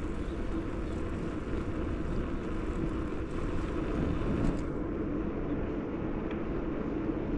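Steady wind and road noise while riding a bicycle on an asphalt road, with the higher hiss easing about two-thirds of the way through.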